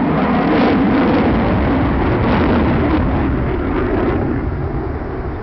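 Jet engine noise of an F-22 Raptor's twin turbofans as the fighter flies overhead. The noise is loudest in the first couple of seconds and slowly fades.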